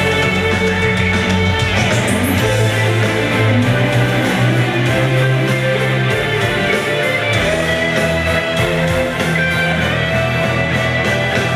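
Loud amplified instrumental music with a steady beat.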